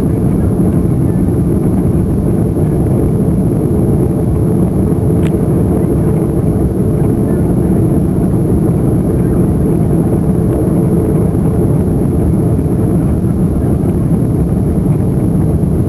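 Cabin noise of an Airbus A340-300 airliner rolling on the ground after landing: a loud, steady low rumble of its four CFM56 engines and the wheels, heard through the cabin wall.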